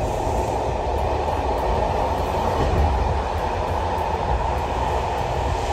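Passenger train running: a steady low rumble.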